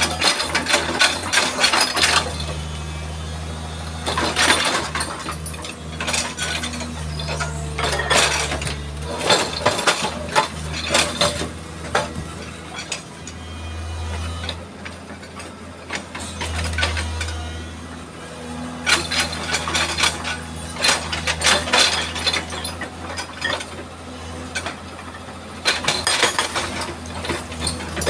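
Hydraulic rock breaker on a Hitachi tracked excavator hammering boulders in spells of rapid metallic blows, with the excavator's diesel engine running steadily underneath. The hammering stops and starts again several times as the breaker is lifted and reset on the rock.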